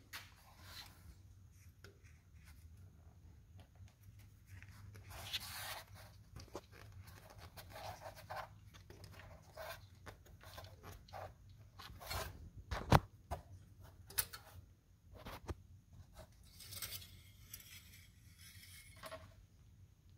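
Intermittent scraping, rubbing and clicking as the automatic transmission fluid dipstick of a 2007–2009 Toyota Camry is worked loose and drawn out of its filler tube. A sharp click comes a little past the middle. A faint steady low hum runs underneath.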